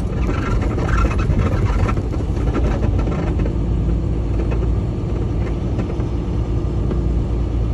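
Semi truck under way, its engine and road noise giving a deep, steady drone heard from inside the cab, with a faint steady hum joining about halfway through.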